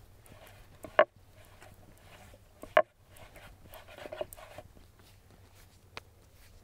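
Bread dough being kneaded and pressed on a floured wooden board: two sharp slaps of the dough about two seconds apart, then softer squishing and patting.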